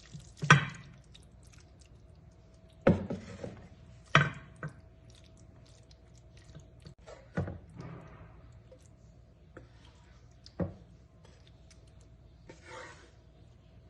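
Kitchen utensils and dishes knocking and clattering a few times at irregular intervals, over a faint steady hum.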